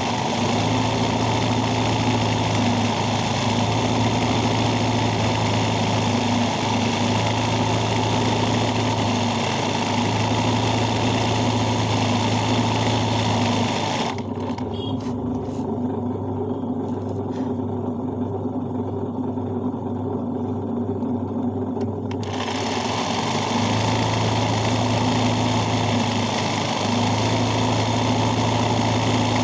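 Sewing machine running steadily for hand-guided hoop embroidery, with a constant motor hum and needle clatter. About halfway through, its higher, brighter noise drops away for several seconds, then comes back.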